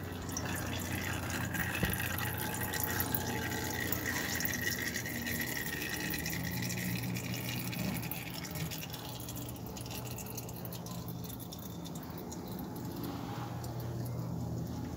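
Used engine oil draining from the sump drain hole of a Yuki YK 200 ATV engine in an oil change, trickling and dripping into a glass jar.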